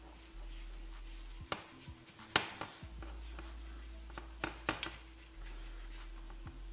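Silicone spatula scraping and knocking against a cast iron skillet while prying up a layer of burnt cheese stuck to the pan, giving a few sharp knocks, the loudest about two and a half seconds in and a quick cluster near the end.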